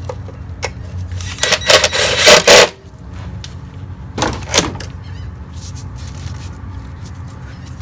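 Metal tools and parts clattering and rattling as they are handled, in a longer bout about a second and a half in and a shorter one about four seconds in, over a steady low hum.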